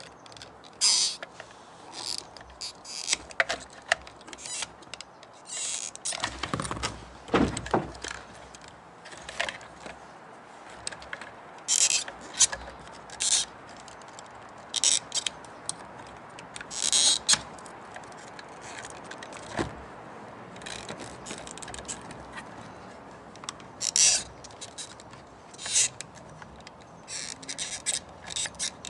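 Screwdrivers working the plastic clips of a fuel pump holder open: irregular scrapes and clicks of metal on plastic, with a brief squeak of plastic about six to eight seconds in.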